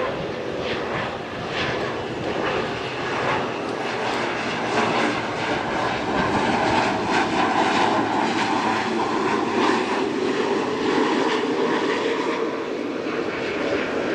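Twin Pratt & Whitney PT6A turboprop engines and propellers of a Beechcraft King Air 350 on final approach, passing low overhead with a steady loud hum, a little louder about halfway through.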